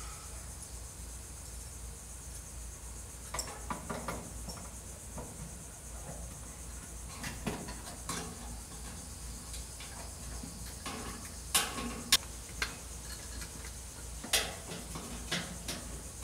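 Scattered light metal clicks and clinks as a brass drain-plunger linkage is fed through a bathtub's overflow opening and the overflow cover plate is fitted. The sharpest clicks come in a cluster about eleven to twelve seconds in.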